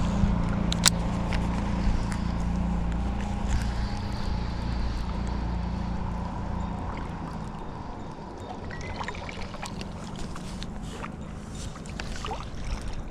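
A motor hums steadily at a low pitch, then fades away about halfway through, leaving a low background rumble with a few small clicks.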